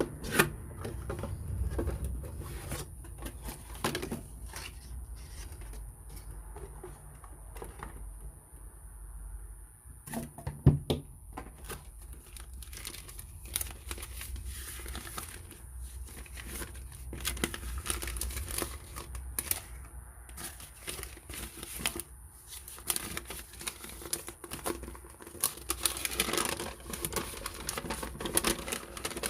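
Packaging of a fishing reel being handled and opened: crinkling, rustling and tearing, broken by scattered clicks and knocks, the loudest a sharp knock about ten seconds in.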